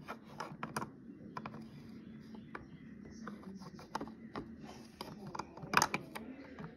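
Plastic toy animal figurines tapping and clacking against a plastic toy shelf unit as they are moved by hand: irregular light clicks, with a louder clatter near the end.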